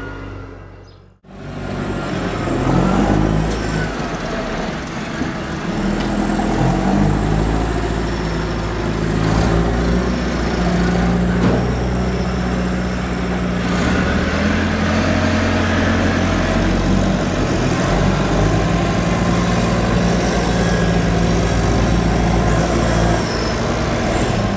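Diesel Massey Ferguson tractor engines running, their revs rising and falling as a tractor tows a loaded silage trailer in. The sound drops out briefly about a second in.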